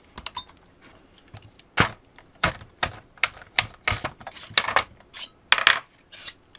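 Cylindrical lithium-ion cells of a Dyson V8 battery pack being pried out of their plastic carrier with a tool. From about two seconds in, a quick run of sharp clicks and clacks, about three a second, as the cells snap loose and knock together.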